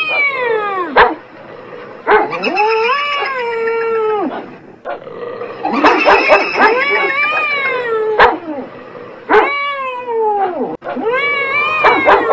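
Cat yowling in long, drawn-out wails that rise and fall in pitch, about five of them, with short sharp dog barks between the calls.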